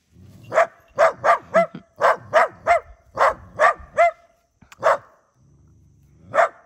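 Small black dog barking at a cow to drive it off: a quick run of about ten sharp barks, then two more spaced out near the end.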